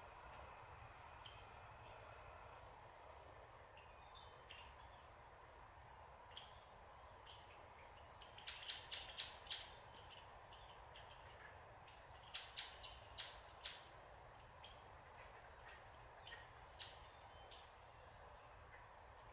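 Faint, steady high-pitched insect chorus, with two short runs of sharp clicks: five or six about halfway through and four a few seconds later.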